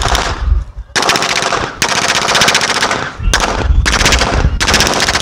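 Automatic machine-gun fire in repeated bursts, each a rapid string of shots lasting up to about a second, with short gaps between bursts.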